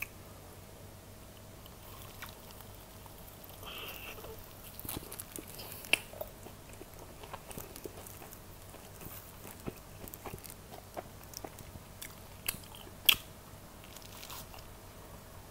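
Close-miked biting and chewing of a fried cheese ball, with soft wet mouth clicks throughout and a couple of sharper clicks about six and thirteen seconds in.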